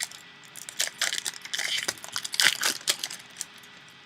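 A trading-card pack being opened and the cards handled: irregular crinkling, rustling and small clicks, the loudest about halfway through.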